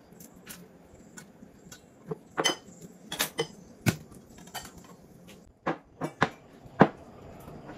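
Kitchen utensils clinking and knocking against stainless-steel bowls and a ceramic plate as seafood is cut and handled: a string of sharp clinks, loudest about two seconds in and again near the end.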